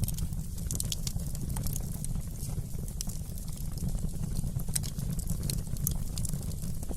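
Wood fire crackling, with irregular sharp pops and ticks over a steady low rumble.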